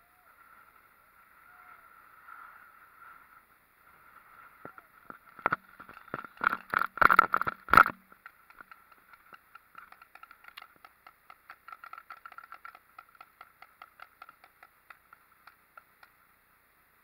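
A quick burst of sharp paintball shots, cracks and pops over about two seconds, then a long run of faint, evenly spaced ticks, about three or four a second, over a faint steady whine.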